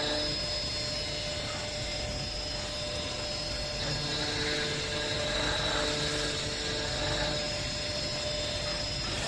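Woodworking CNC router running: a steady high spindle whine over a continuous mechanical drone, with lower tones coming and going between about four and seven seconds in.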